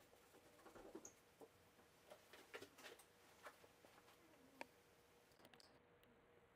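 Near silence with a handful of faint, irregular light clicks and taps.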